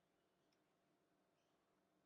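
Near silence: faint steady room tone with two tiny high ticks, about half a second and a second and a half in.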